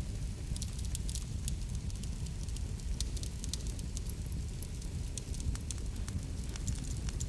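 Wood fire burning with a steady low rumble and frequent irregular crackles and pops.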